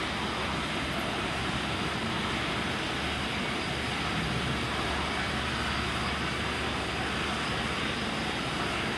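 A steady, even rushing noise that does not change and has no distinct knocks or calls in it.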